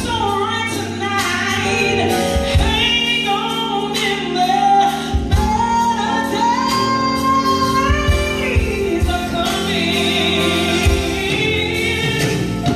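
A woman singing a gospel song live through a microphone and PA, with slow melodic runs and long held, wavering notes over a band's sustained chords. A low beat lands about every three seconds.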